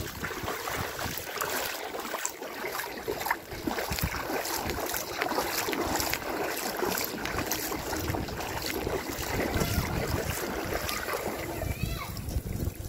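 Floodwater sloshing and splashing in irregular strokes as someone wades through thigh-deep water, with wind noise on the microphone and rain.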